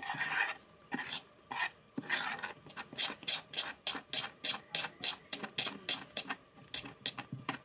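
A spoon beating rice-and-chana-dal dhokla batter in an aluminium pot, scraping the pot with each stroke: a few slow strokes, then rapid ones at about three or four a second. The batter is being beaten in one direction after Eno fruit salt has gone in, to make it light and airy.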